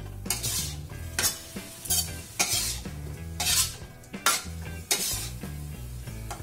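Metal spatula scraping along a wok and tossing sauced tempe pieces in a stir-fry, one stroke about every two-thirds of a second, each bringing a short burst of frying sizzle.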